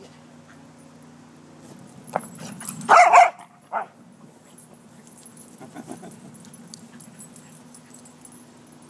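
Dog barking: one loud bark about three seconds in, then a shorter bark just after.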